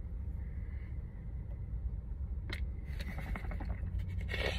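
Mouth noises of a man dry-swallowing a scoop of pre-workout powder: a small click about two and a half seconds in, some crackly mouth sounds, and a breathy puff of air near the end. A steady low car-cabin rumble runs underneath.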